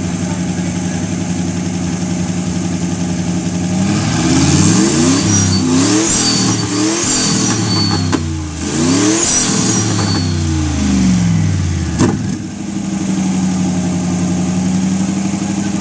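320 cubic inch Buick Straight 8 racing engine idling, then revved up and down several times before settling back to a steady idle. A single sharp crack comes about twelve seconds in, as the revving ends.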